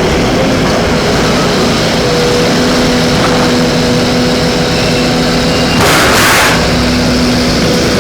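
Excavator's diesel engine running steadily with a held tone, and a short rush of noise lasting under a second, about six seconds in.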